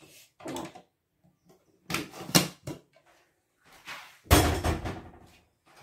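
Kitchen handling sounds: a few knocks and clinks of pots and utensils, with a heavier thud about four seconds in.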